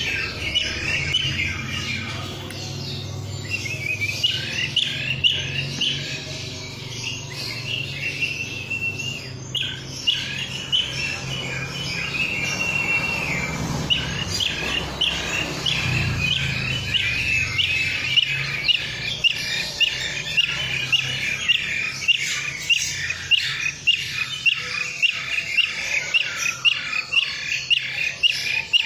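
Bee-eater calling in quick, rolling chirps, repeated many times and coming thick and fast in the last third. A low steady hum runs underneath and fades out about two-thirds of the way through.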